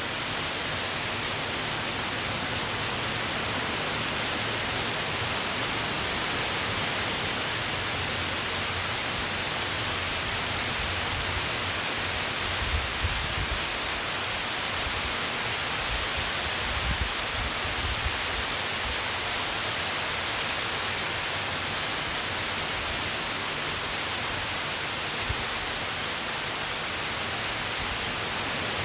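Steady rain falling, an even hiss with no letup, and a few brief low bumps about halfway through.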